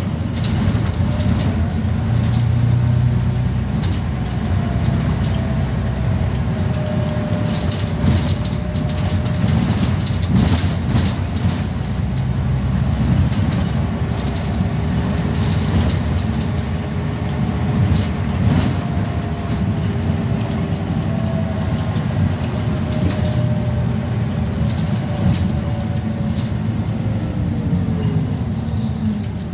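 Scania N94UB single-deck bus heard from inside the passenger saloon while driving: a steady low engine drone with a fainter whine that rises and falls with road speed, and occasional clicks and rattles.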